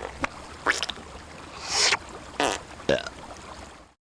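Human mouth sound effects: a string of short puffs and blows, a longer breathy whoosh about two seconds in, and a brief falling squeak near the end. The sound cuts off just before the end.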